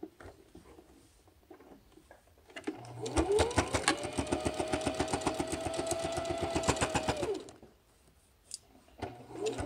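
Electric sewing machine top-stitching along a folded fabric edge: the motor whines up about three seconds in and runs with a fast, even needle stroke, about nine a second, for some four seconds, then winds down and stops. It starts up again just before the end.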